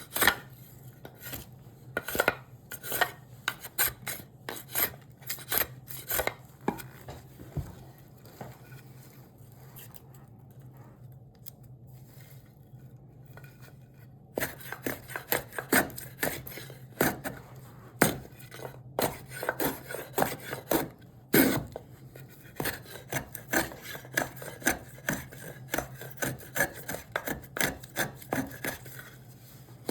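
Hand tool shaping a piece of cherry wood with quick, irregular strokes. The strokes pause for several seconds near the middle, then start again.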